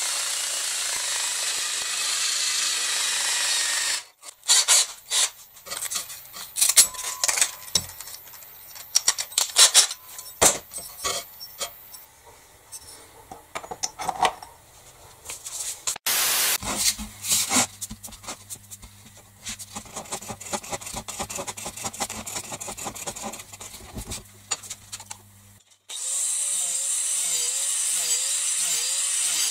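A handheld rotary tool with a sanding drum runs steadily against a plywood edge for about four seconds. Then come scattered clinks and knocks of tools being handled. Near the end an angle grinder starts cutting through a plastic drain pipe, its pitch wavering under load.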